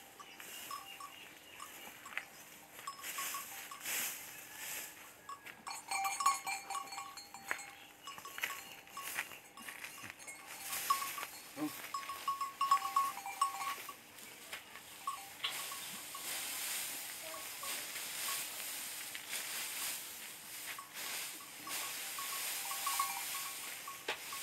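Bullocks treading round on a threshing floor of dry straw, the straw rustling and crunching under their hooves, with a bell clinking in short runs every few seconds.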